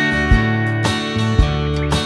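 Background music led by a plucked guitar, with a steady beat of about two a second.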